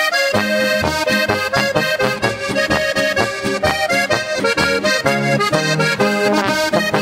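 Accordion playing a lively instrumental break in a Slovenian folk song, quick notes over a steady bass and rhythm backing.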